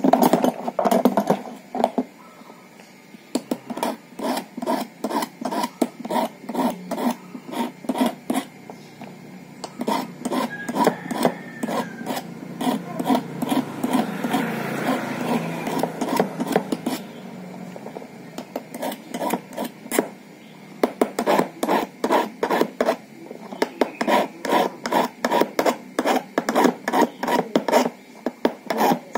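Small hand file rasping across a metal car key blank as the key's cuts are shaped by hand: quick back-and-forth strokes, several a second, in runs with short pauses.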